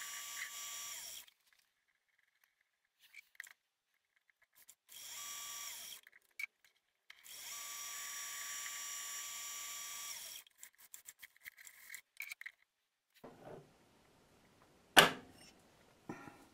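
Myford ML7 lathe running while turning a washer: a steady whine of motor and gears in three stretches, each starting and stopping abruptly. After them come a scatter of light clicks and, near the end, one sharp loud knock.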